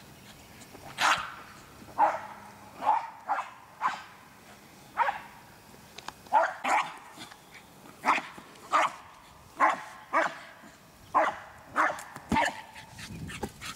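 American Eskimo dog barking repeatedly in short, sharp, high barks, roughly one or two a second and irregularly spaced: excited play barking at a ball.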